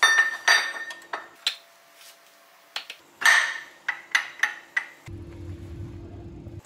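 Steel gears of a ZF 16S 1820 TO truck gearbox clinking and ringing as they are handled and fitted onto the mainshaft: a run of sharp metal-on-metal knocks, the loudest at the start and about three seconds in, with a quicker cluster of small clinks just after. A low steady hum comes in about five seconds in.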